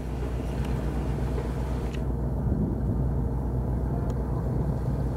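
Boat engine running at a steady low drone, with water and wind noise over it.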